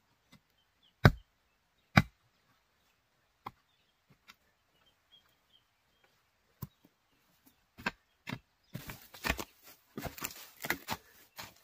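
Mattock blade chopping into soil while digging out winter bamboo shoots: two sharp strikes about a second apart near the start, then a few lighter knocks. In the last few seconds comes a busy stretch of scraping and rustling in soil and dead leaves.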